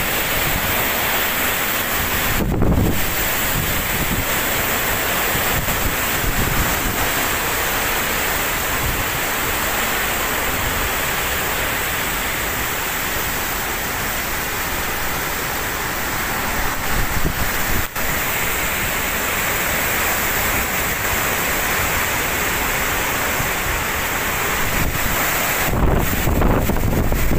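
Typhoon-force wind and rain rushing through palm and banana trees in a dense, steady noise, with heavy gusts buffeting the microphone as a deep rumble about two and a half seconds in and again near the end.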